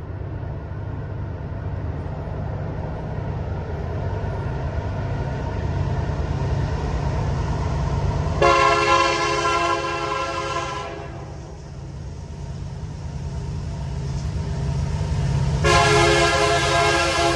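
Approaching diesel-hauled freight train led by CP 6644, an EMD SD70ACU: a low rumble slowly grows louder as it nears. Its multi-chime air horn sounds twice, a blast of about two and a half seconds some eight seconds in and another starting near the end.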